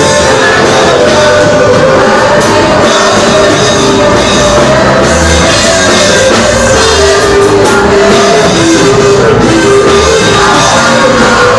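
Loud live church praise and worship music: voices singing held notes over a full band, with no break in the sound.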